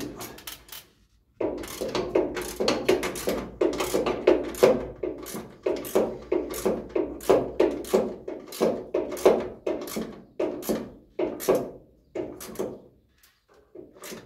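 Hand ratchet wrench clicking in quick, repeated strokes as bolts are drawn tight. The clicking pauses about a second and a half in, then runs on steadily, stopping near the end with a few last strokes.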